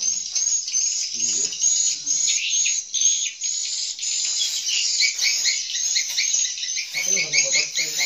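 Edible-nest swiftlets twittering inside a swiftlet house: many high, rapid chirping calls overlapping into a continuous din.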